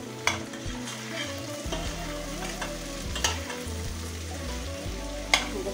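Chopped fresh broad beans sizzling in a stainless steel pot on a gas stove while a metal spoon stirs them, the spoon clinking against the pot three times.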